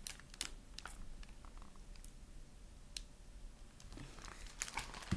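Faint scattered clicks and light rustling from a picture book being handled between pages, with a small cluster of clicks near the end.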